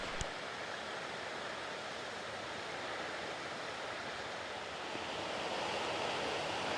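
Steady rush of a fast-flowing mountain river, growing a little louder about five seconds in.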